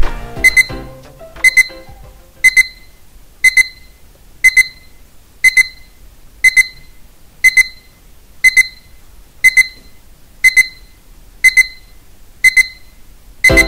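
Digital alarm clock beeping: a high double beep about once a second, repeated a dozen times and more. The end of a piece of music dies away under the first beeps.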